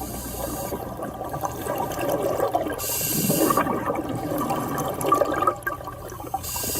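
Water rushing and sloshing, swelling about every three seconds, from a scene of swimming in a river with an anaconda.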